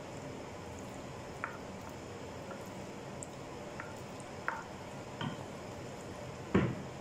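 A spatula spreading sauced macaroni in a baking dish: soft stirring and squishing with a few light taps against the dish, then one louder knock near the end.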